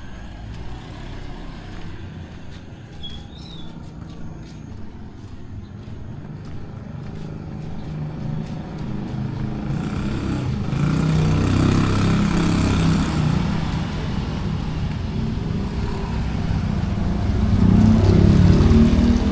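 Motor vehicle engines running as they approach and pass close on a road. The sound builds to its loudest about halfway through and peaks again near the end.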